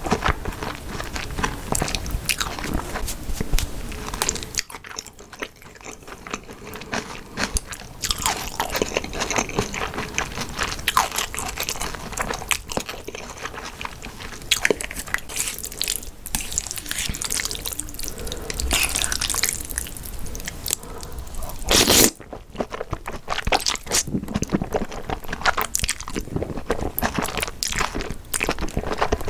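Close-miked chewing of jjajangmyeon black bean noodles: wet smacking and crunching bites, with a quieter stretch early on and one short loud burst about three-quarters of the way in. Near the end, a fresh load of noodles goes into the mouth.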